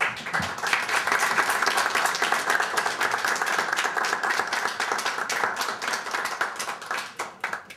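A room of diners applauding, many hands clapping together, thinning out and dying away near the end.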